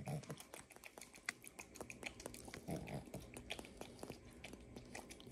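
Macaque grooming a person's face up close: a quick, uneven run of soft clicks and smacks from its lips and fingers picking at skin and hair, with two short low sounds near the start and about three seconds in.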